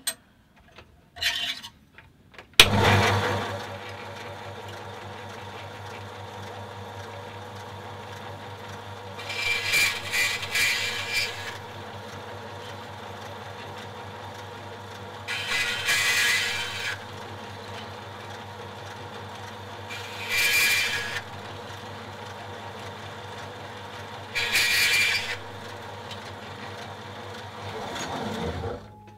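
Burgess BBS-20 bandsaw switched on with a sudden start and running with a steady hum, its fine-pitch blade cutting thin-wall aluminium tubing four times, each cut a hiss lasting a second or two. The motor winds down near the end.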